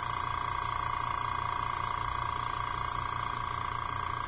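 Fujima mini airbrush compressor running with a steady hum while compressed air hisses out of the open airbrush, bled off so the regulator can be set to working pressure. The hiss stops about three seconds in, while the compressor keeps running.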